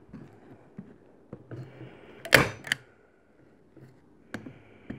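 Manual staple gun firing a staple through rope into a wooden post: one sharp snap a little past two seconds in, followed by a smaller click, with a few faint clicks of handling around it.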